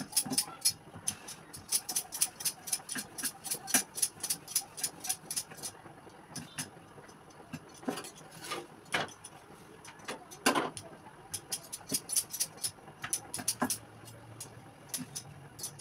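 Rapid light clicks and clinks of metal utensils at the stove while a paratha is worked on a flat griddle, with a few louder knocks in the middle.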